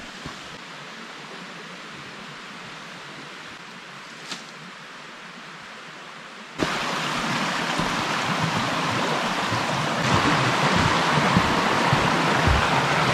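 Shallow stream rushing over rocks: a steady hiss of running water, fainter at first, then abruptly much louder a little past halfway, and louder again near the end.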